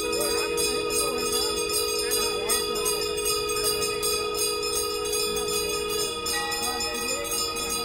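Several conch shells (shankh) blown together in long, steady, held notes, over continuous rapid ringing of temple bells. This is the conch blowing of the Ganga aarti.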